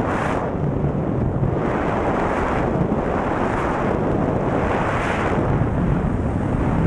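Wind rushing over the camera microphone during parachute canopy flight, a steady buffeting roar that swells and eases every second or two.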